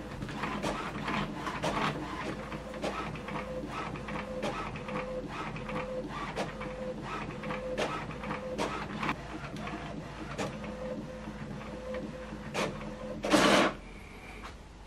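HP OfficeJet Pro 8135e inkjet printer printing its printhead alignment page: the print mechanism runs with a steady hum and a rapid run of clicks. Near the end there is a short, louder whir as the finished page comes out, and then the mechanism goes quiet.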